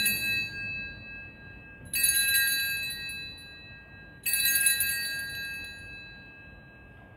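Altar bells (a cluster of small sanctus bells) rung three times at the elevation of the chalice after the consecration. The first ring is already sounding at the start, the next two come about 2 and 4 seconds in, and each is a bright jangling ring that fades out.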